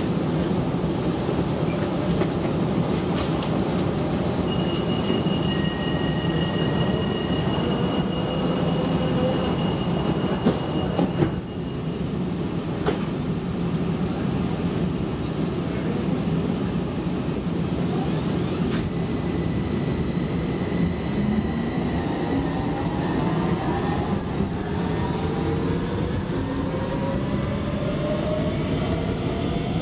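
Interior of a Copenhagen Metro driverless train: a steady rumble while it stands at an underground platform, with a thin high tone for several seconds and a few knocks about eleven seconds in. From about twenty seconds in, the traction motors whine in several tones that rise together as the train pulls away into the tunnel.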